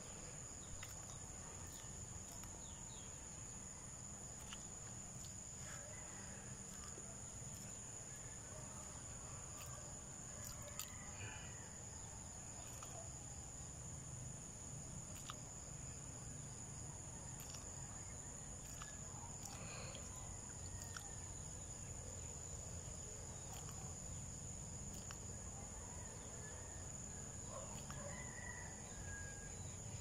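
Steady high-pitched insect drone that does not change, over a low background rumble, with a few faint bird calls here and there.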